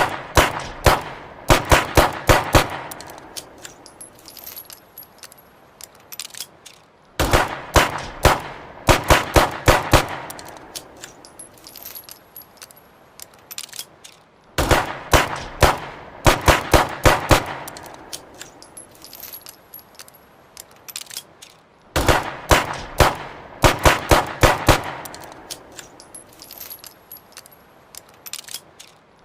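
Ruger SP101 revolver shots fired in quick strings, each string a rapid run of sharp reports with an echoing tail, repeated four times about seven seconds apart.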